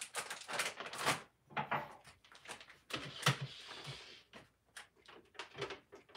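Kitchen objects being handled at a counter: scattered knocks and clacks of containers and utensils being set down, with short rattling or rustling stretches in between.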